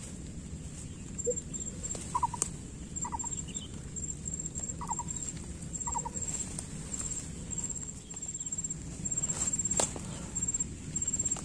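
Gloved hands scraping and pulling at soil and roots while digging out a lantana stump, with rustling of dry stems and a couple of sharp knocks. A bird calls four short notes about two to six seconds in, and a high rhythmic chirping runs underneath.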